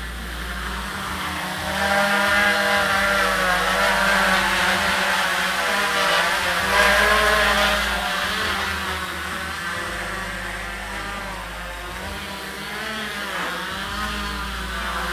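Quadcopter drone's propellers buzzing in flight with a wavering whine, louder about two seconds in as it comes close overhead, easing off after about eight seconds as it moves away, and rising again near the end.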